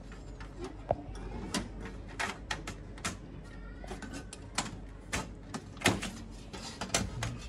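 Sheet-metal cover panel of a Fuji Xerox copier knocking and scraping against the machine's metal frame as it is pushed and seated into place by hand: a string of irregular sharp knocks and clacks.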